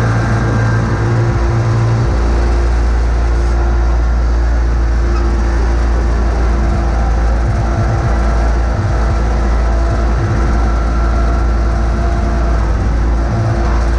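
John Deere X585 garden tractor's engine running steadily as the tractor pushes snow across pavement with its front blade.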